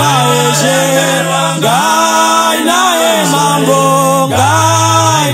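A gospel vocal group singing a Shona praise song in harmony, with a held low bass note that shifts pitch a few times under the voices.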